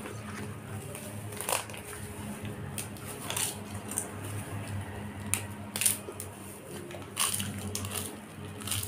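Crisp fried papad (papadum) being snapped by hand and crunched between the teeth, a run of sharp irregular cracks about a second apart, close to the microphone.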